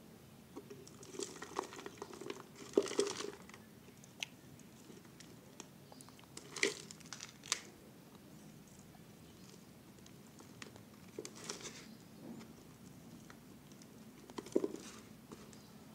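A thin clear plastic drink bottle crinkling and clicking in the hands as soil is scooped from a bucket into it, in irregular bursts of rustling with small sharp knocks.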